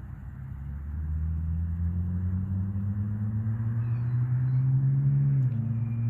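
An engine hum, steady but rising slowly in pitch and growing louder, with a small jump about five and a half seconds in, over a steady hiss.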